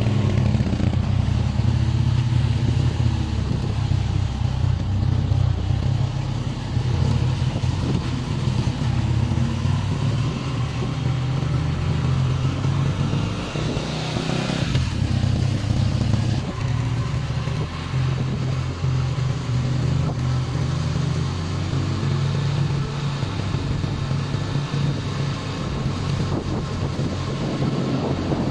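Motorcycle engine running steadily while being ridden, heard from on board the bike.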